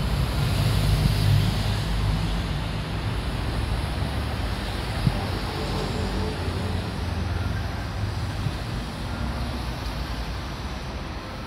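Steady city road traffic: a continuous low rumble of passing cars, a little louder in the first few seconds.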